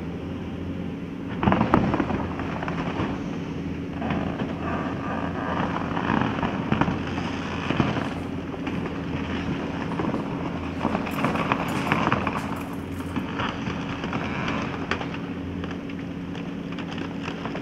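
Excavator's diesel engine running steadily while timber cracks and snaps as the machine tears at the base of a wooden grain elevator, the loudest crack about a second and a half in.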